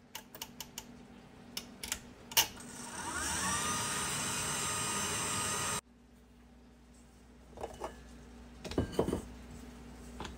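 KitchenAid tilt-head stand mixer with a flat beater mixing sourdough discard, water and flour into a shaggy dough. After a few clicks, the motor whines up in pitch and runs steadily for about three seconds, then stops abruptly. A few knocks and rustles follow near the end.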